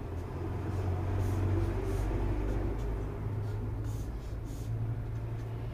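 Felt-tip marker drawing on a whiteboard: a handful of short scratchy strokes, over a steady low hum.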